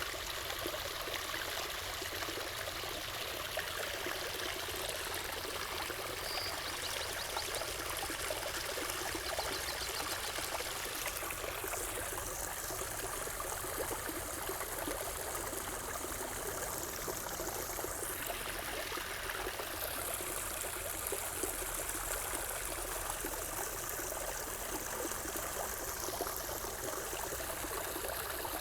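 Water running and trickling steadily, an even wash of sound without breaks.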